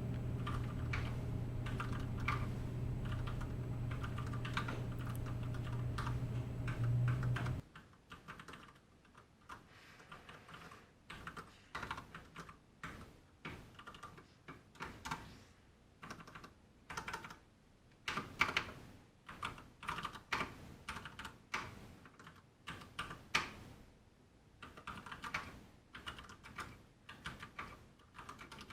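Typing on a Ducky One 2 RGB full-size mechanical keyboard: irregular runs of key clacks, some quicker flurries, some single presses. A steady low hum underlies the first seven seconds or so and cuts off suddenly.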